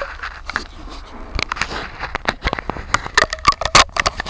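Close handling noise at a camera worn on a dog's head: a run of sharp clicks, scrapes and crackles right against the microphone, growing busier from about a second and a half in as a hand comes up to it.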